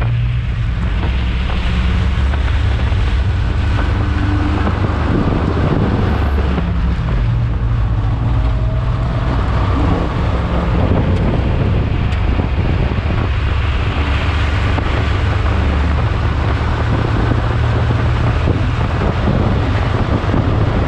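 Race car engine running hard at speed, its note shifting up and down, under heavy wind buffeting on the microphone of an open roadster.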